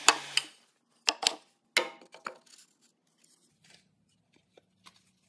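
Spruce pieces of a castle joint knocking and clicking against each other as they are fitted together by hand: a cluster of sharp wooden knocks over the first two and a half seconds, then a few faint taps.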